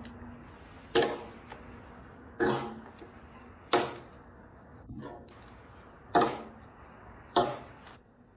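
Japanese hewing axe (masakari) chopping into a round pine log, shaving it lengthwise: six sharp strikes about one and a quarter seconds apart, the one near the middle softer.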